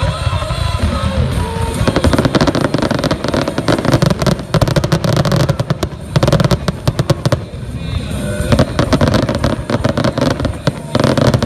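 Aerial fireworks display: many shells bursting in rapid, overlapping bangs and crackles, most densely from about two seconds in.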